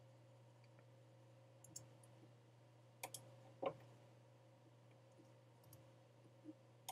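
Near silence: a faint low steady hum with a few soft clicks from operating a computer, a cluster about three seconds in and a couple more near the end.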